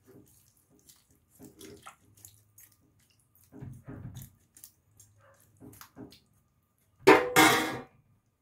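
Metal spoon stirring a pot of curry chicken, with scattered light scrapes and clinks against the metal pot, then a loud clatter lasting about a second near the end.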